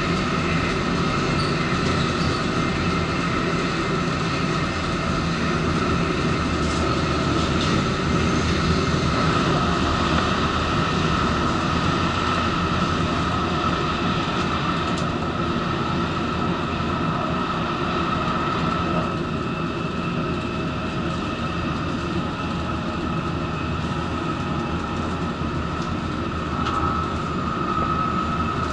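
Running noise of an N700-series Shinkansen car heard inside the door vestibule: a steady rumble of wheels and running gear with a steady high whine over it.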